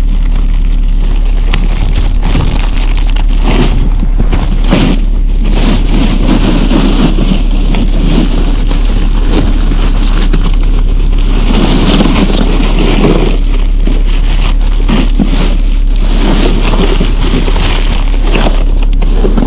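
A boat's engine running steadily with a low drone, with crinkling plastic bags and shifting ice coming and going on top as bags are handled in a cooler.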